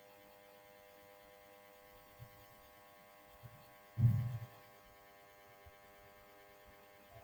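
Faint steady electrical hum in the recording, made of several thin steady tones, with one brief low sound about four seconds in.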